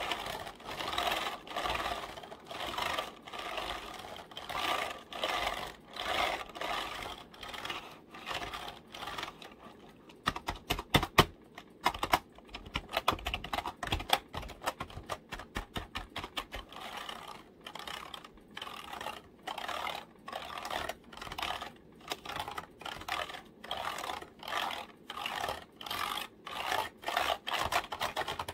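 Fingers tapping and typing on a computer keyboard: rapid runs of key clicks that come in clusters, with a stretch of sharper, louder taps about ten seconds in.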